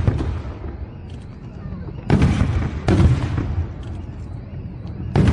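Fireworks going off: three sudden bangs, each with a short rumbling tail. Two come close together about two and three seconds in, and a third comes near the end, over a steady background din.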